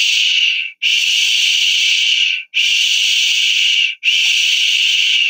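A long shushing 'shh' hiss, repeated several times, each about a second and a half, with brief breaks between: the 'deep shh' of a thick shell, modelling the 'sh' sound.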